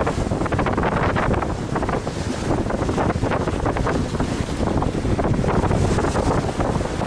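Wind buffeting the microphone in gusts, with a heavy low rumble, over the rush and splash of the sea along the hull of a sailing yacht under sail.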